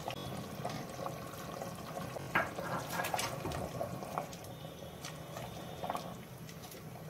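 A spatula stirring potato chunks and beef through thin curry in an aluminium pressure cooker: liquid sloshing, with a few light knocks of the spatula and potatoes against the pot, the strongest about two and a half and three seconds in.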